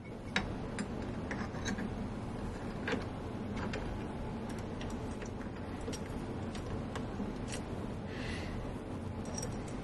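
Scattered small metallic clicks and taps as a bi-metal hole saw on its arbor is fitted into a drill press chuck and the chuck is tightened, with a brief rustle near the end. A steady low hum runs underneath.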